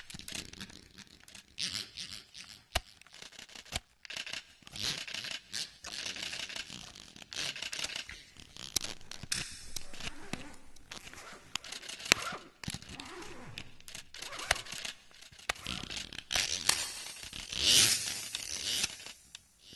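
Canon EOS 77D camera making mechanical handling noises: an irregular string of sharp clicks mixed with short scraping, rustling bursts, the loudest of them about three-quarters of the way through.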